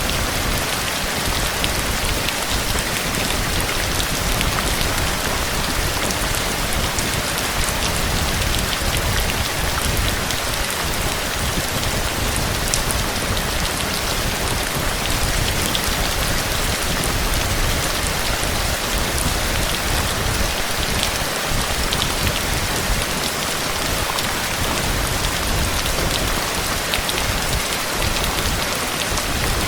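Steady heavy rain falling and pattering on a surface, with fine drop ticks and no break or swell.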